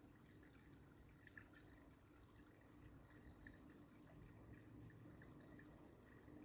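Near silence: low room noise with a few faint, short high chirps and soft ticks.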